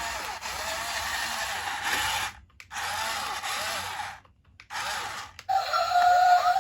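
Small electric motor and plastic gearbox of a toy RC construction vehicle whirring, with the pitch wavering. It cuts out twice for a moment. Music begins near the end.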